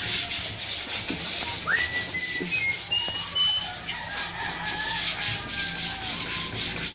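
A crumpled wad of paper rubbed back and forth over the slate bed of a billiard table, along the filled seam between the slates, in repeated scraping strokes. A few short high whistled notes sound about two to three seconds in.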